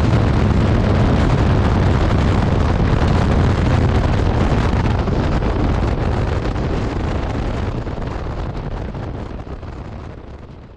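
Heavy wind rush over the microphone mixed with the BMW F800GS Adventure's parallel-twin engine as the motorcycle slows from over 100 mph. The noise eases from about halfway through and fades out near the end.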